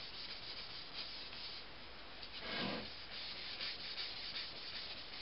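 Paper towel rubbing oil along the edges of a walnut and maple cutting board: a soft, steady wiping, with one louder swish about halfway through.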